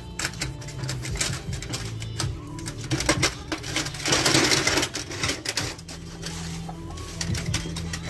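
Clicks and clanks of a steel scissor jack being handled and set in place on a steel diamond-plate lift table, with a louder rough scrape about four seconds in.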